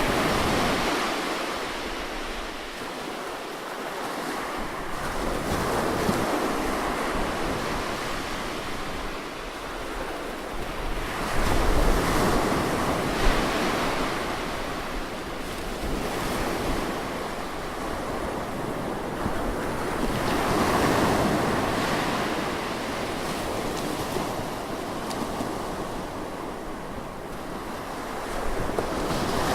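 Ocean surf breaking close by, the wash of the waves swelling and fading every several seconds. There are gusts of wind rumble on the microphone, strongest about halfway through.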